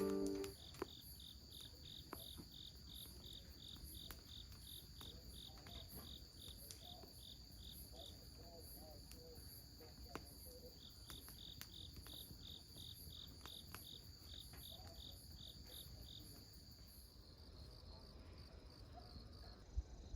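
Faint crickets chirping: a steady high trill with a slower pulsed chirp over it, about two or three chirps a second, which pauses for several seconds midway and stops near the end. There is one soft knock just before the end.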